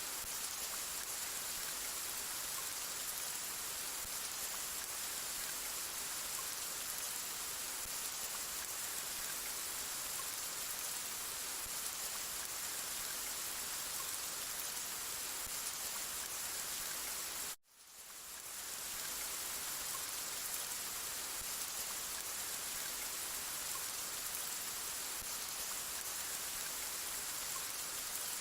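Steady, even rain falling. About two-thirds of the way through it cuts out abruptly and fades back in over about a second.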